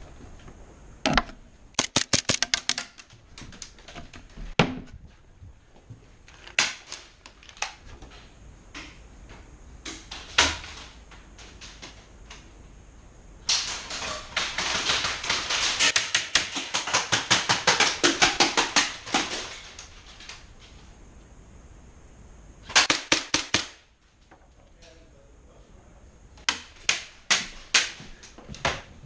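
Airsoft guns firing: rapid bursts of sharp clicks with single shots between them. The longest burst runs about six seconds midway, with shorter volleys near the start, a little past two-thirds of the way and near the end.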